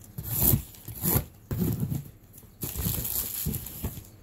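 Cardboard shipping box being torn open and its flaps handled by hand, in a run of short, uneven bursts of crackling, tearing noise.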